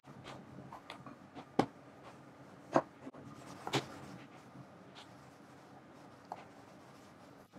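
Rolling pin working pastry dough on a wooden board: soft rubbing and scraping, with a few sharp knocks, the three loudest between about one and a half and four seconds in.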